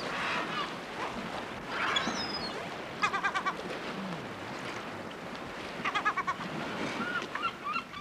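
A goat being milked by hand into a plastic bucket, the milk squirting in with short hisses, while a bird gives two quick runs of calls, about three seconds and six seconds in.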